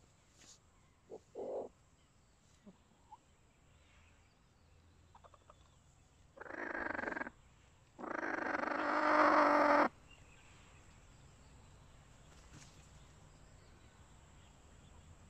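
Chickens in a nest crate: a few short, soft calls, then two loud calls about six and eight seconds in, the second drawn out for about two seconds and growing louder.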